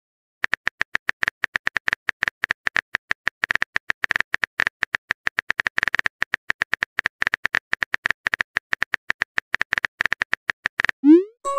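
Phone keyboard typing sound effect: rapid, irregular clicks, one per typed letter, going on for about ten seconds. Near the end comes a short rising swoop as the message is sent.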